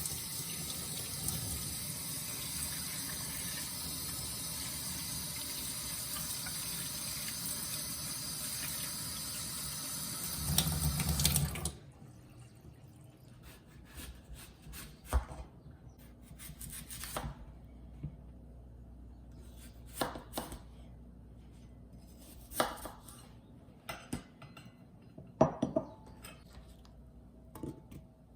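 Kitchen tap running steadily, with a fuller gush just before it is shut off about twelve seconds in. Then scattered knocks and clinks of dishes and utensils being handled on the counter.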